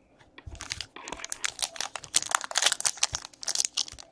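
Foil wrapper of a trading-card pack crinkling and tearing as it is ripped open, a rapid run of crackles starting about half a second in.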